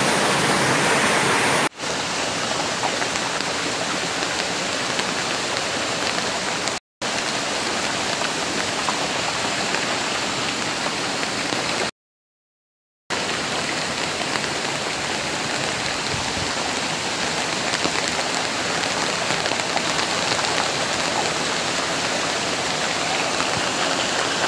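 Muddy floodwater from heavy rain rushing across a road in a steady torrent, like a river in spate. The sound drops out briefly twice, about 7 and 12 seconds in.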